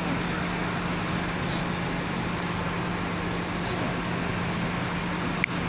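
Steady outdoor traffic and engine noise with a constant low hum, and a single short click about five and a half seconds in.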